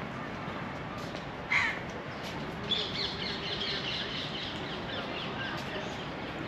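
A crow caws once, loudly, about one and a half seconds in. A run of quick, high chirps follows for a couple of seconds, over steady outdoor background noise.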